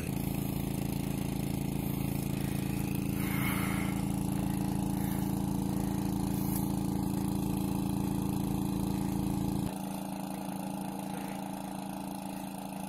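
A small engine running at a steady speed, suddenly quieter about ten seconds in.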